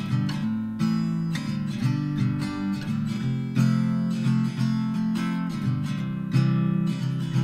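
Background music played on acoustic guitar, with plucked and strummed notes at a steady pace.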